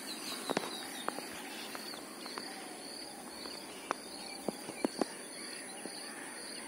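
Faint outdoor ambience: a steady low hiss with faint high chirping and a handful of short, sharp ticks scattered through it.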